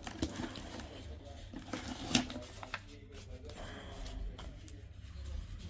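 Faint handling noises: a few light clicks and rustles over a low hum.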